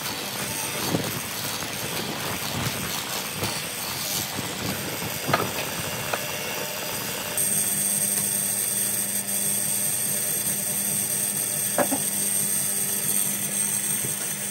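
Benchtop hollow-chisel mortiser running, its square chisel and auger cutting into a pine board, with a couple of knocks. About seven seconds in the sound changes to a steadier motor hum with a high whine.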